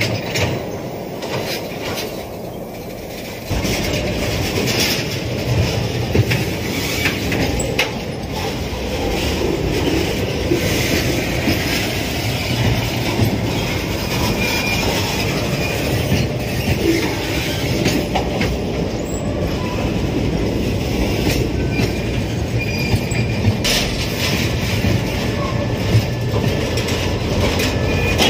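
A train hauled by diesel locomotive QSY 5214 on the move, with steady rolling noise of wheels on rails and occasional sharp knocks. The noise gets louder about three and a half seconds in.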